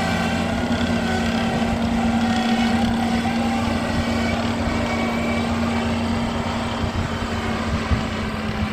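Earth-moving machine's engine running steadily at a constant pitch, with one brief knock near the end.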